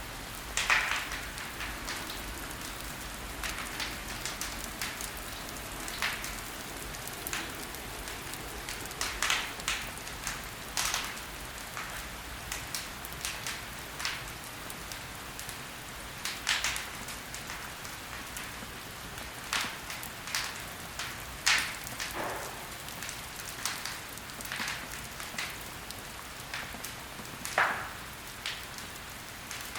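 Wood logs burning in a fireplace, crackling: irregular sharp pops and snaps, a few of them loud, over a steady soft hiss.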